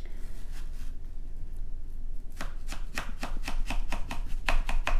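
Knife cutting into a halved watermelon's flesh on a plate: faint at first, then a run of quick, crisp slicing strokes about three a second from about halfway in, getting louder near the end.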